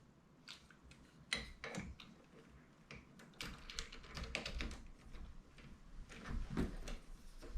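Irregular clicks and light knocks of door lock parts being handled and fitted into the bore of a door, with a sharper knock about a second in and a busier run of small clicks in the second half.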